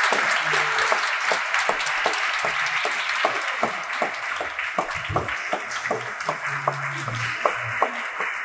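Audience applauding, a dense patter of many hands clapping that thins to more distinct, separate claps in the second half.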